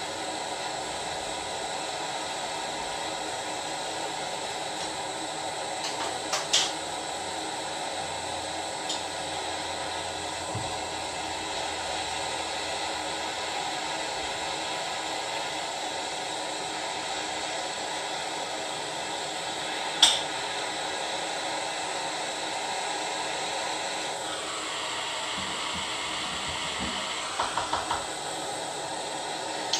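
Handheld gas torch flame hissing steadily as it plays on bismuth chips in a metal spoon. There are two sharp clicks, about a third and two-thirds of the way in. The hiss changes tone about three-quarters through, and a few quick light taps follow near the end.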